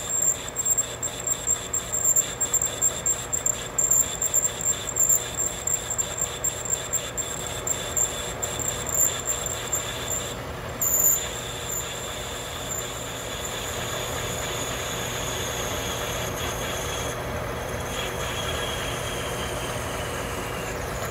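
Metal lathe parting off a spinning brass workpiece, the parting tool cutting in with a steady high ringing tone over the lathe's running hum. Irregular ticking comes through for the first half, then the cut runs steadier and the tone slides slightly lower near the end.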